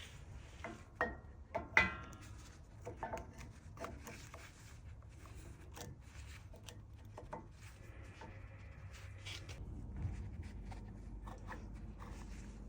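Metal brake hardware being handled and fitted on a front brake assembly: scattered clicks, light metal taps and rubbing, with one short ringing metallic ping about two seconds in.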